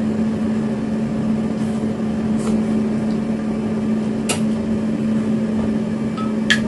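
Steady mechanical hum with a few light clicks, the sharpest near the end.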